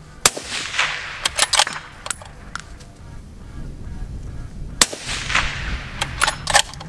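Two shots from a Howa 6.5 Creedmoor bolt-action rifle fitted with a muzzle brake, one just after the start and one about four and a half seconds later, each a sharp crack trailing off in a long echo. After each shot comes a run of metallic clicks as the bolt is cycled.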